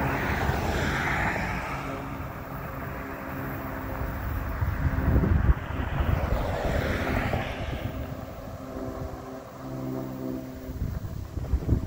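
Freight train of tank wagons and covered wagons rolling away along the track, a steady rumble of wheels on rail. Gusts of wind hit the microphone about five seconds in and again near the end.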